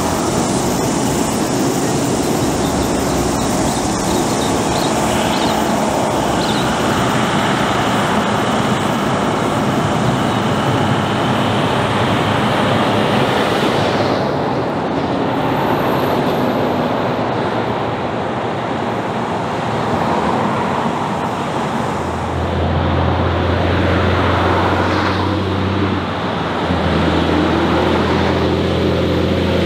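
Heavy trucks and trailer units passing close by on the highway: diesel engines running and tyres on the road surface. In the latter part a deep engine drone comes in as a truck and trailer approaches, with the engine pitch rising and then falling near the end.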